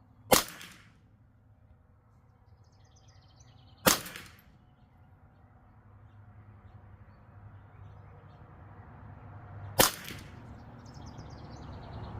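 Three single .22 LR shots from a custom Ruger 10/22 rifle, each a sharp crack. The first two come about three and a half seconds apart, and the third about six seconds later.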